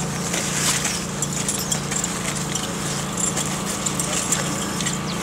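A small engine running steadily with a low hum, while diving gear clicks and rattles as it is handled.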